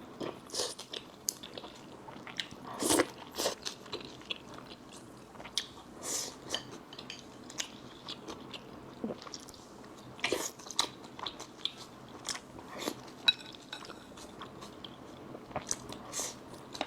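A person eating, with chewing and biting mouth sounds made up of many short, irregular crunchy clicks.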